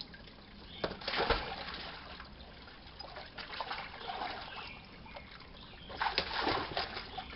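Chesapeake Bay Retriever wading in a shallow garden pond, splashing the water, with louder splashes about a second in and again near the end, over a steady trickle of water.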